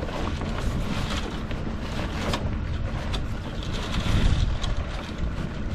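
Wind buffeting the microphone aboard a sailboat under way: a steady rush, gusting louder about four seconds in, with a few light knocks.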